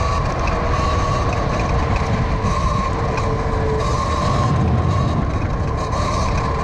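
Eride Pro SS electric dirt bike riding off-road: the motor's steady, slightly wavering whine over heavy rumbling wind and tyre noise.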